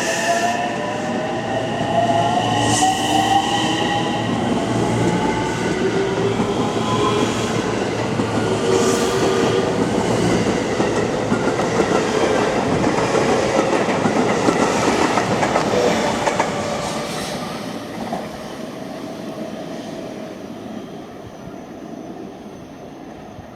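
Ten-car JR West 225 series and 223 series electric train pulling out, its inverter-driven traction motors whining in tones that rise in pitch as it gathers speed, over the steady rumble of wheels on the rails. The sound fades away over the last several seconds as the train leaves.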